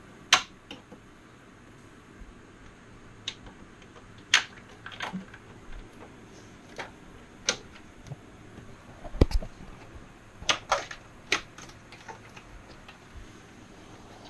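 Irregular sharp clicks and clacks of cable plugs being pulled from a desktop PC's motherboard and graphics card, with one duller knock about nine seconds in.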